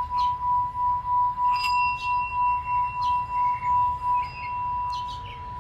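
Metal singing bowl being sung by a mallet rubbed around its rim: one steady ringing tone that swells and fades about four times a second. About a second and a half in, a light knock adds a higher ringing tone; after about four seconds the swelling stops and the tone rings on steadily.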